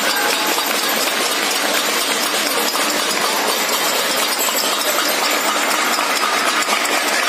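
Many people across the neighbourhood clapping and banging metal plates and utensils from balconies and rooftops: a dense, steady din of claps and clanks.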